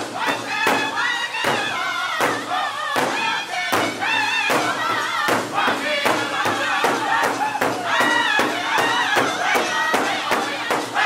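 Powwow drum group singing in unison in high voices while several singers strike a large shared hide drum with sticks in a steady, even beat.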